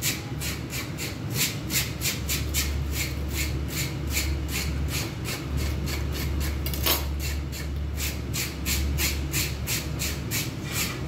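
A fish scaler scraping scales off a whole zobaidy (silver pomfret) in quick, even rasping strokes, about three to four a second.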